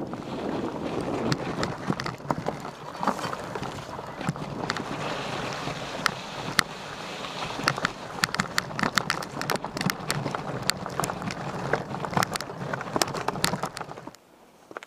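Mountain bike ridden over a wet, rocky trail: steady wind rush on the microphone with frequent sharp clattering knocks from the bike over stones, busier after about six seconds. It turns much quieter suddenly near the end.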